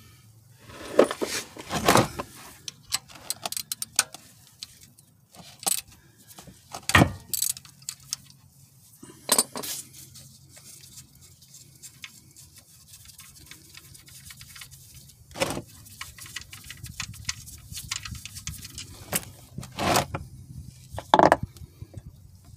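Metal tools and the steel drain plug on the oil pan of a Chevy Cobalt's 2.2 L Ecotec engine as the plug is loosened with a 15 mm socket and unscrewed by hand: scattered, irregular metallic clicks and clinks.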